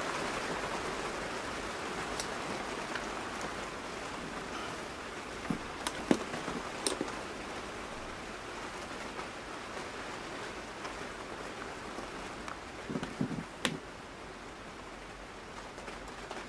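Steady rain heard from indoors, with a few tool clicks and knocks about six seconds in and again near the end.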